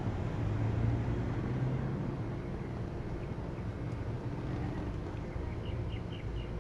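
Steady low engine-like rumble, with a bird giving four faint, short, high chirps near the end.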